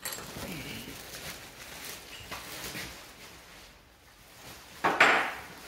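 Metal hand tools clinking and scraping against a Jonway 125cc four-stroke scooter engine while its spark plug is being taken out, with a brief louder noise about five seconds in.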